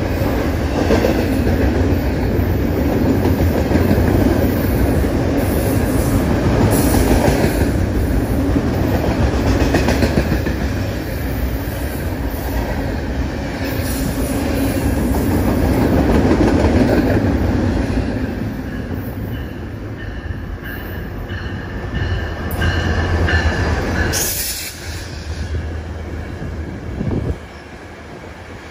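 Long double-stack container freight train rolling past at speed, a steady rumble with the clickety-clack of wheels over the rail and some wheel squeal. The noise eases after about 18 s and drops off sharply near the end as the train's tail clears.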